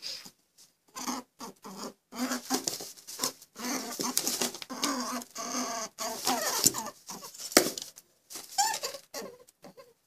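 A rabbit munching on grass close to the ground: irregular crunching and rustling bites, with one sharp click about seven and a half seconds in.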